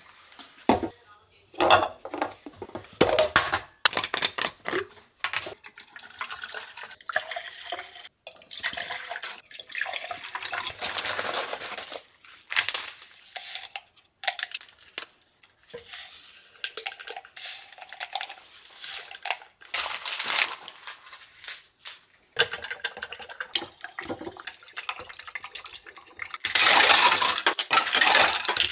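Making iced instant coffee at a tiled counter: glass and plastic cups clinking and knocking as they are handled, instant coffee sticks opened and stirred in, then ice cubes scooped and clattering into the glasses. The ice clatter near the end is the loudest part.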